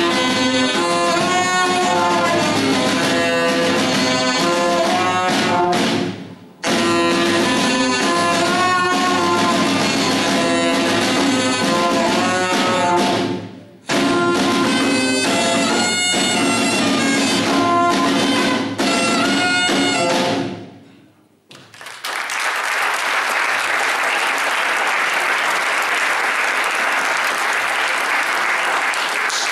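Live jazz from an alto saxophone and double bass with drums, cutting off sharply twice for a moment, ending about twenty seconds in. Then audience applause.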